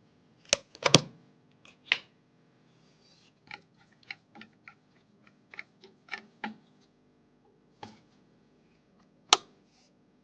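Small hard clicks and knocks from computer parts being handled and fitted: a few loud knocks about a second in, a run of lighter ticks in the middle, and one sharp click near the end.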